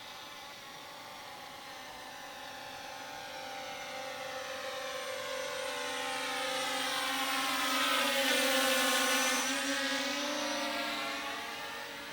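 Multirotor drone's propeller whine flying past: it grows louder to a peak about eight to nine seconds in, then fades as it moves away.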